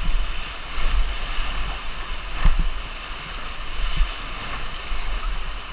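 Whitewater rapids rushing around an inflatable raft, with wind buffeting the microphone in a low rumble. A short thump a little under halfway through.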